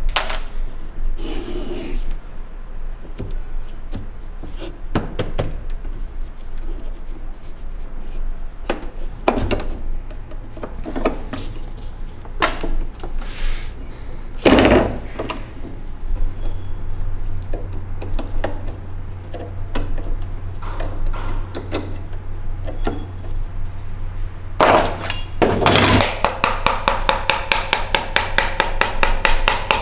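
Hand work on the cord wrapping of a sword handle: the cord rubbing and being pulled tight, with scattered small clicks. Scissors snip the cord about halfway through. Near the end comes a fast run of light hammer taps, several a second.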